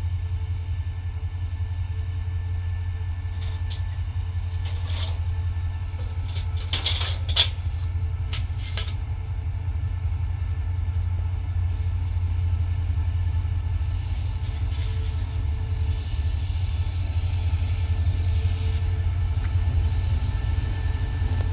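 Diesel train approaching: a steady low engine rumble that slowly grows louder, with a few sharp clicks about seven seconds in and a hiss building in the second half.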